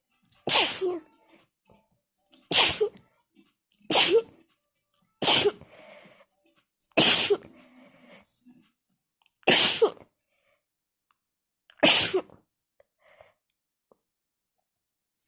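A woman's fit of wet sneezes: seven sharp sneezes in a row, one to two and a half seconds apart, with short breaths between them.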